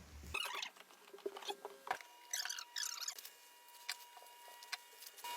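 Hands opening a parcel: quiet, irregular scratching, rustling and crinkling of the packaging, with a few light clicks.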